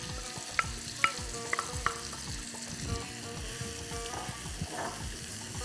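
Finely chopped onion sizzling as it fries in hot olive oil in a non-stick pan, stirred with a wooden spoon, with a few short sharp ticks in the first couple of seconds.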